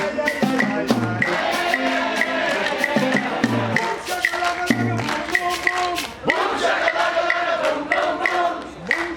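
Live festival music: a band with drums and percussion over a repeating bass line, with held notes on top and a note sliding upward about six seconds in.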